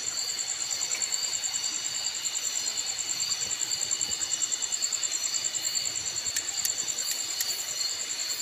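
Night insects, crickets, trilling steadily in several high-pitched bands, the highest a fast, even pulsing trill. A few light clicks come about six to seven seconds in.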